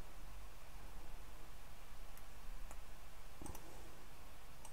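A few faint computer mouse clicks, spread out and irregular, over a steady low room hum.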